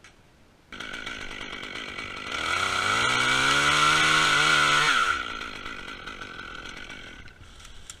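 Chainsaw running at idle, then revved to full throttle about two seconds in and held there for about three seconds while cutting wood, before dropping back to idle.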